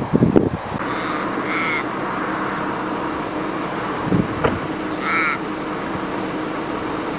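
A crow cawing: a drawn-out, wavering call about a second in and another about five seconds in, over a steady hiss of background noise. A low wind rumble on the microphone dies away in the first half-second.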